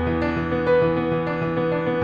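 Gentle background music led by a piano, with notes changing every half second or so over held low notes.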